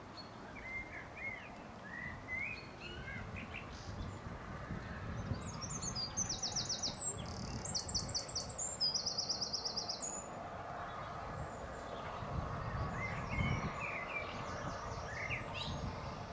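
Songbirds singing, with a fast high-pitched trill repeated in several runs in the middle. A low rumble underneath from a steam locomotive drifting slowly in.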